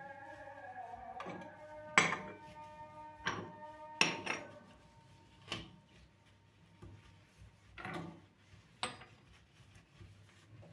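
Dishes and utensils being handled: a run of short clinks and knocks, about seven, some ringing briefly, the loudest about two and four seconds in. Background music fades out at the start.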